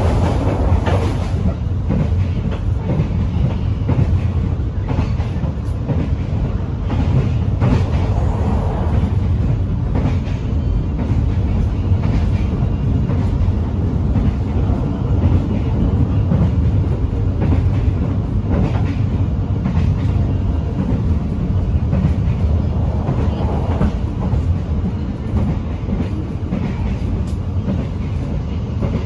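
Running noise of a moving passenger train heard from inside an economy coach: a steady low rumble from wheels and rails, with occasional faint clicks.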